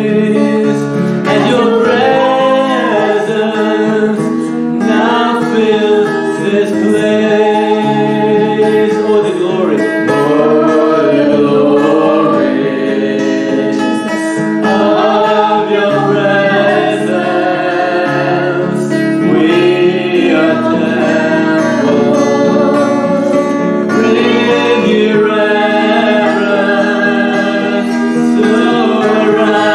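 Christian worship music: a voice singing a free, wordless-seeming line over sustained band chords, the music flowing on between songs.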